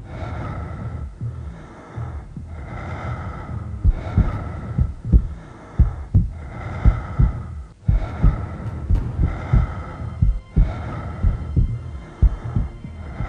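Horror-film opening soundtrack: a slow, heavy heartbeat-like thudding about once a second over a steady pulsing hum.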